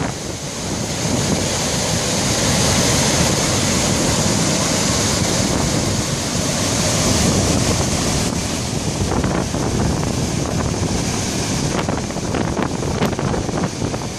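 Gullfoss waterfall: the Hvítá river's glacial torrent rushing over the falls, a loud, steady rush of white water, with wind buffeting the microphone.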